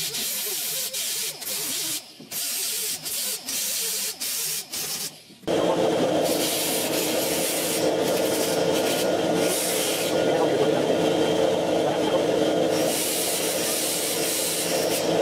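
Welding arc on rusty sheet steel, sealing pinholes in a truck's inner roof, crackling in a string of short bursts with brief pauses between. After about five seconds it gives way to one steady, louder noise that runs on without a break.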